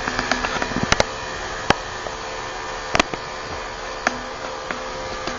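Electric dog-grooming clippers running steadily, buzzing as they cut through the coat, with a few sharp clicks.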